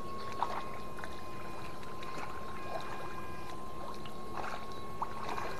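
Steady high-pitched whine of an electric fishing (fish-stunning) device with a probe in the water. Higher tones come and go over it, and there are light water splashes and two short sharp clicks, about half a second in and about five seconds in.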